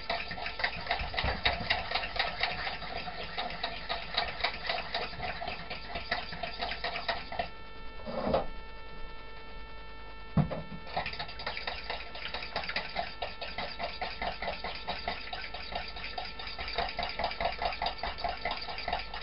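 A spoon beating dressing in a small metal bowl: rapid, even clinking strokes. The strokes stop for a few seconds about eight seconds in, a single knock comes about ten seconds in, and then the beating resumes.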